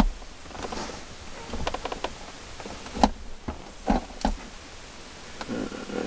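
Hands handling a car stereo's wiring harness and electrical tape: a series of sharp clicks and knocks, with a quick run of small ticks about one and a half seconds in.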